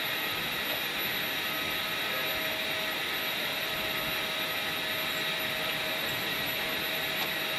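A jet turbine running steadily: an even rush of noise with thin, high, unchanging whines over it.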